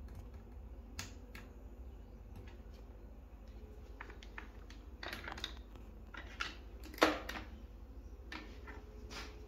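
Scattered light clicks and taps from multimeter test probes and hand tools being handled on a washing machine's steel top, the loudest click about seven seconds in, over a low steady hum.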